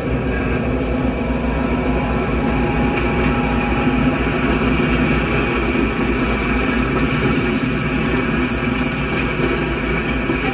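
Passenger train cars rolling past at speed, a steady loud rumble of wheels on rail, with a thin high wheel squeal over the middle stretch.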